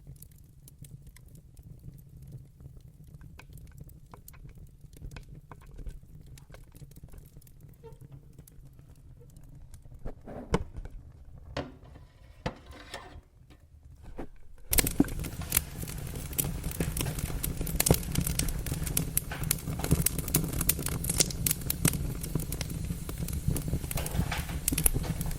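Wood fire crackling in a fireplace: quiet with sparse pops at first, a few sharper pops just past the middle, then from about fifteen seconds in suddenly much louder, dense crackling and popping over a low rumble.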